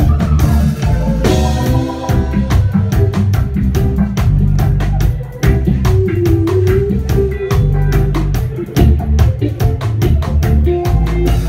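Live reggae band playing through the PA: drum kit, electric bass and keyboards keeping a steady beat, with the bass line strongest.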